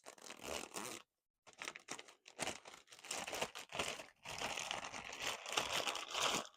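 Packaging of a newly bought crimping tool being opened by hand, with crinkling and tearing. The rustling comes in short stretches at first and runs more continuously through the second half.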